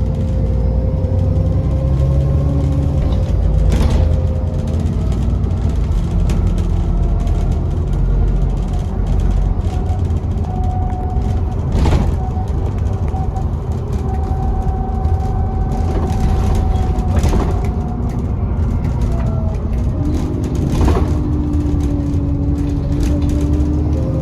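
Diesel bus engine running under load, heard from inside the bus, with a turbocharger whistle as thin tones that drift up and down in pitch with the engine's speed. A few sharp knocks from the bus body come through along the way.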